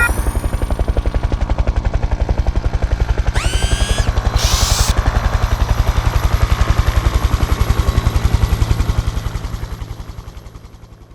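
Helicopter rotor sound effect: a rapid, even chopping that fades out near the end. About three and a half seconds in, a rising electronic zap sweeps upward, followed by a short hiss.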